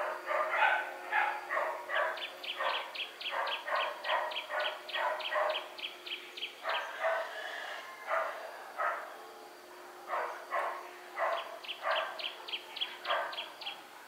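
Dog barking over and over, about two barks a second, with a brief pause just past the middle. A rapid series of high chirps runs alongside the barking in two stretches.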